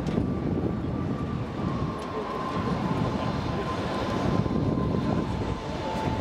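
Steady low roar of waterborne firework fountains spraying sparks, with a faint thin tone slowly falling in pitch.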